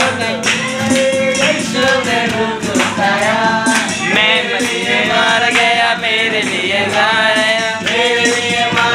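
Several voices singing a Hindi Christian worship song together to a strummed acoustic guitar, with a steady percussive beat.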